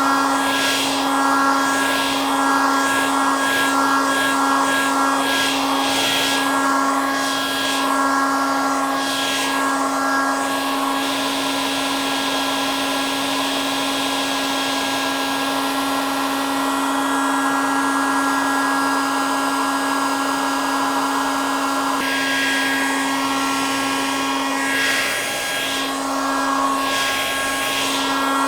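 Hair dryer running continuously: a steady motor hum with a whine over rushing air. The airy hiss wavers in slow swooshes during the first few seconds to about a third of the way in, and again near the end.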